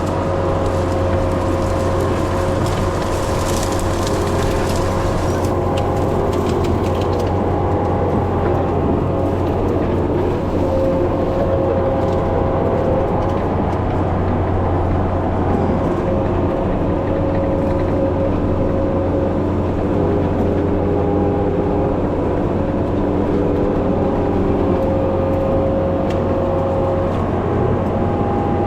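Skid steer's diesel engine running steadily at working revs, with higher whining tones that come and go as it works.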